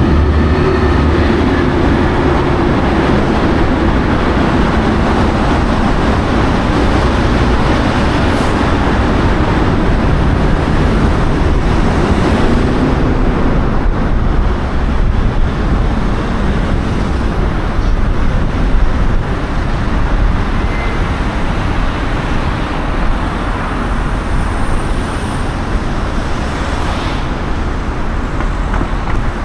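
Steady road noise from a car driving through city streets: tyre and wind noise with a low rumble.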